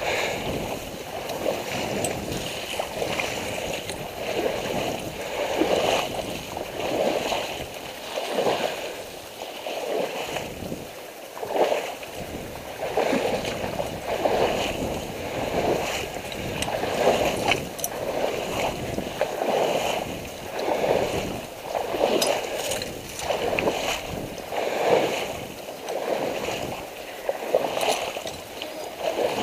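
Water sloshing and swishing in an uneven rhythm, about one surge a second, as someone moves through a shallow reed marsh.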